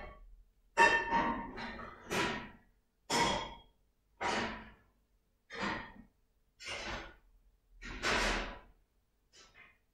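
An African elephant spraying wet mud over its head and back with its trunk, mud-bathing: a run of short noisy sprays about one a second, each starting suddenly and fading quickly.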